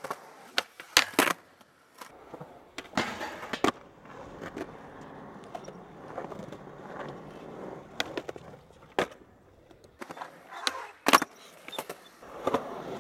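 Skateboards rolling on smooth concrete, their wheels making a steady rumble, broken by several sharp clacks as the boards pop and land, the loudest about a second in and near the end.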